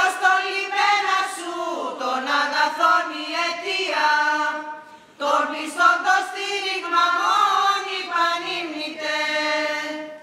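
A group of women singing Byzantine chant together, unaccompanied, in long drawn-out phrases with gliding notes. There is a brief break about five seconds in before the singing resumes.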